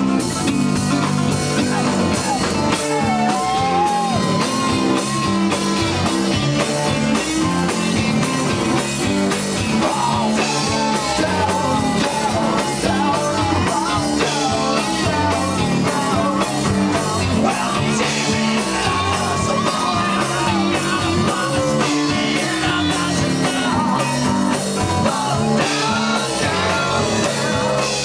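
Live rock band playing loud with electric guitars, bass and a drum kit keeping a steady beat.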